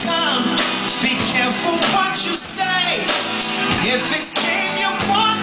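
Live R&B band performance with a male lead singer, his voice sliding and bending through melodic runs over a steady band accompaniment.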